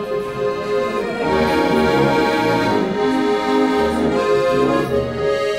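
Accordion playing a tune: a held melody and chords over regularly repeated bass notes, growing louder about a second in.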